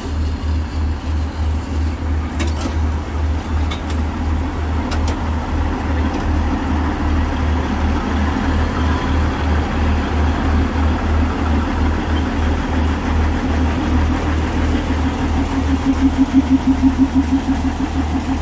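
NDM1 narrow-gauge diesel locomotive's engine running at a steady idle with an even low throb, about three to four beats a second. The beat grows louder and stronger near the end.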